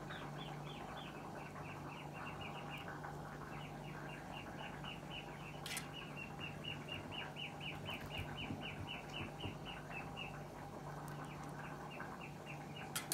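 A bird chirping in a fast, even series of short high chirps, about five a second, that break off briefly near the end, over a steady low hum.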